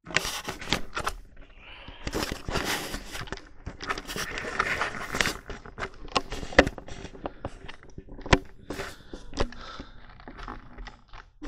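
Handling noise from a hand-held camera being picked up and moved: scraping and rubbing against the microphone, with sharp knocks, two of them standing out about six and a half and eight seconds in.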